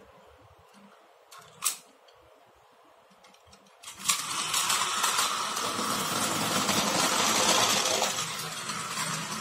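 A couple of sharp plastic clicks as a toy Osaka Metro 400 series train is set on its blue plastic track. About four seconds in, its battery motor switches on and the train runs with a steady whir and rattle of wheels on the plastic track.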